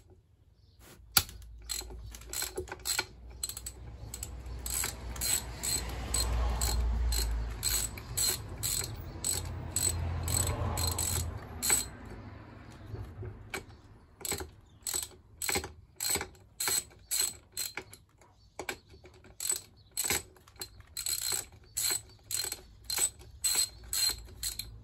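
Socket ratchet clicking in quick runs while undoing the front bolt on the engine's crankcase halves. The middle is louder and rougher; in the second half the clicking comes in short, evenly spaced runs, about one and a half a second, as the handle is swung back and forth.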